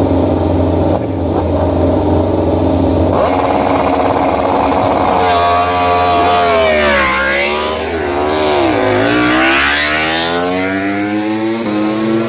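Two MotoGP prototype race bikes' four-cylinder engines, running steadily at first, then revved hard and pulling away. The engine pitch rises and drops sharply several times as they accelerate through the gears.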